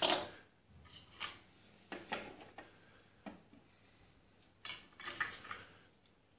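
Wooden replica rifle parts handled on a tiled floor: a sharp knock at the start, then a few lighter clacks and a short cluster of rattling knocks about five seconds in, wood against wood and tile.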